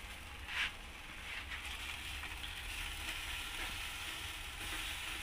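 Pork pieces sizzling and spitting fat on a small charcoal grill's wire grate over glowing coals, a steady hiss. A short louder noise comes about half a second in.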